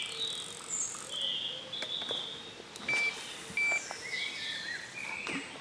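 Songbirds calling with short chirps and whistles, and two short, level electronic beeps from a carp bite alarm about three seconds in, under a second apart, a sign of a fish touching the bait on that rod.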